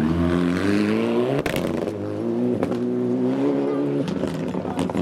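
Mitsubishi Lancer Evolution rally car's turbocharged four-cylinder engine accelerating hard on gravel. The note rises, breaks briefly at an upshift about a second and a half in, rises again, then drops away about four seconds in. Sharp crackles follow near the end.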